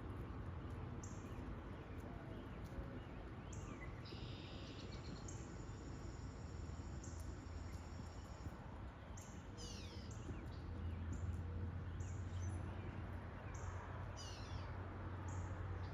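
Small birds chirping, with short high notes repeated throughout, a held whistle in the first half and quick falling calls about two-thirds of the way in. A steady low hum runs underneath.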